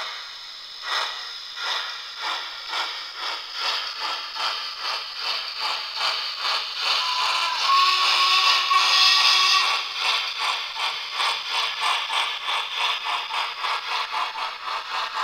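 Hornby DCC sound decoder in a model Princess Coronation class steam locomotive, playing steam-engine chuffs as the train pulls away. The chuffs speed up from about one a second to about three a second, and a whistle note is held for a couple of seconds midway over a louder hiss.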